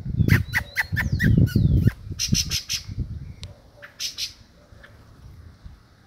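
Rufous-bellied thrush (sabiá-laranjeira) giving harsh, rapid squawking calls in two quick series, then a few more, with a low rumble under the first series. The calls are the parent birds defending their nestlings.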